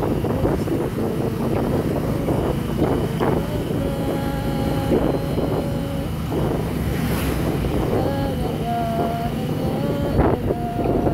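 Vehicle engine and road noise while driving, with wind buffeting the microphone.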